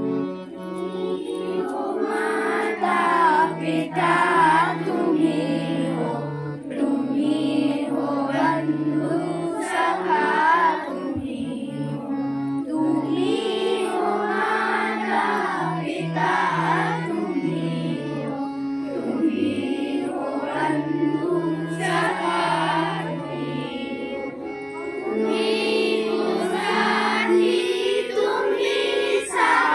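A prayer song sung as a melody over steady held low accompanying notes that change in steps, continuing without a break.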